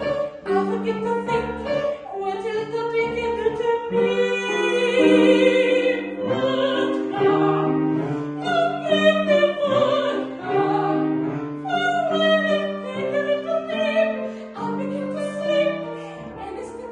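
Mezzo-soprano singing with strong operatic vibrato, accompanied by piano.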